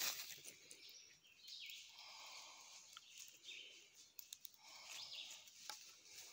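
Quiet woodland ambience with two faint bird calls, about two seconds and about five seconds in.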